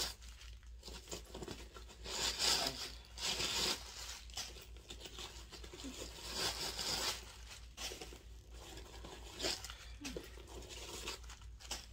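Paper stuffing rustling and crinkling in bursts as it is pulled out of a new handbag, loudest in two stretches, about two to four seconds in and again around six to seven seconds.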